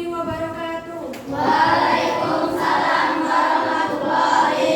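A class of children singing together in unison. About a second in, a single sustained singing voice gives way to the louder group.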